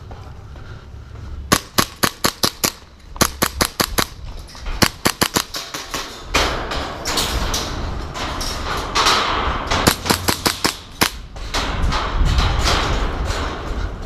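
Airsoft guns firing sharp shots in quick strings of five to eight, about a second and a half in, again around three and five seconds, and a last string near eleven seconds. From about six seconds in, a rushing noise of movement runs under the shots.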